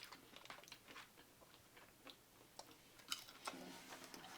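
Faint chewing of a person eating: scattered short mouth clicks, with one sharper click about three seconds in.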